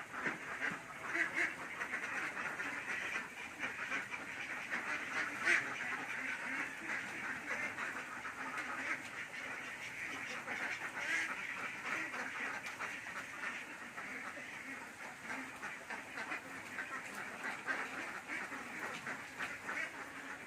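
A flock of farm ducks quacking, many calls overlapping into a continuous chatter.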